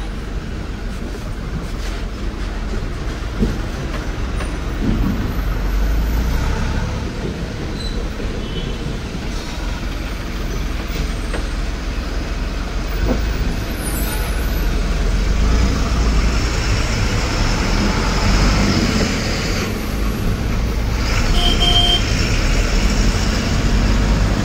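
Truck engine and road noise heard from inside the cab while it drives along: a steady low rumble that grows somewhat louder about two-thirds of the way through.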